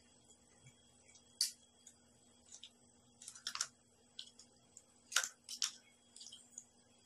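Eating sounds from a person eating stir-fried clams by hand: a handful of short, sharp clicks and smacks, the loudest about one and a half seconds in and two close together about five seconds in. A faint steady electrical hum sits underneath.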